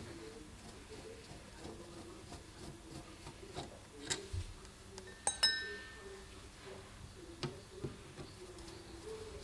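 Small metal clicks and clinks of a screwdriver and loose screws while the float chamber screws of a Stromberg carburettor are taken out, with one sharper ringing clink about five and a half seconds in.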